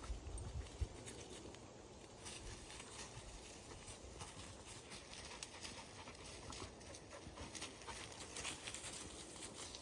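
Dogs' paws scuffling and crunching through dry fallen leaves, a string of irregular crackles and rustles, with a brief low bump about a second in.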